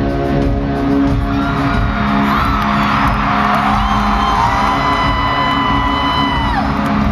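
Live country rock band playing through a stadium PA, heard from high in the stands, with held chords and the crowd whooping and screaming over it from about two seconds in.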